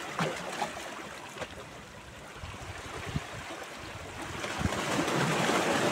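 Small sea waves washing and splashing against shoreline rocks, swelling louder in the second half. A few brief low bumps of wind on the microphone come before that.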